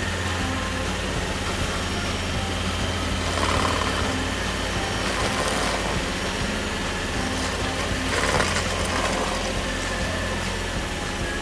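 Bandit SG75 stump grinder running under load, its engine holding a steady low hum while the cutter wheel chews into a rotten stump, with louder grinding surges about three and a half seconds and eight seconds in.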